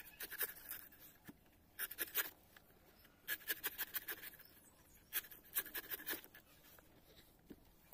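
Large kitchen knife slicing and shaving the husk of a green tender coconut, in four short runs of quick, crisp cutting strokes that stop about six seconds in.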